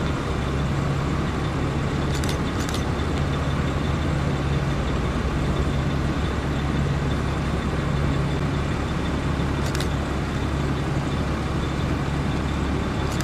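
Police cars and SUVs in a slow procession driving past, their engines and tyres making a steady low hum, with a few brief high clicks.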